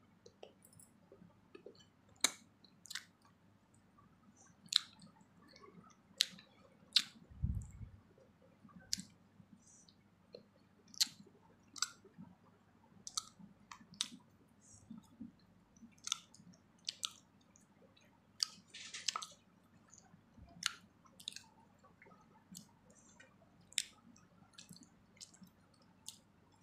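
A person chewing close to the microphone, with sharp wet mouth clicks and lip smacks about once a second. One dull low bump about seven seconds in.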